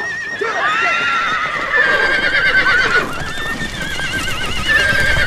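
Several horses whinnying, their long quavering neighs overlapping one after another, over a low clatter of hooves.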